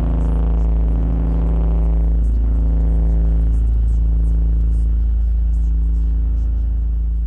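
Sustained, heavily distorted low drone of amplified instruments ringing out as a noise-punk track closes. It is a deep rumbling hum with several held tones, and it begins to fade near the end.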